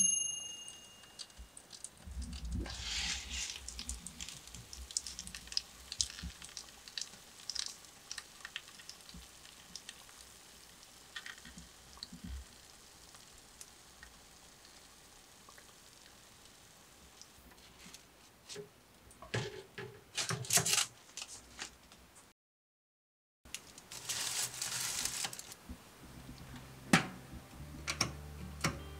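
A Koizumi toaster oven's timer bell dings once at the start, the sign that the timer has run out. Aluminium foil around the roast chicken crinkles in a few bursts, and near the end the oven's timer knob is wound, clicking.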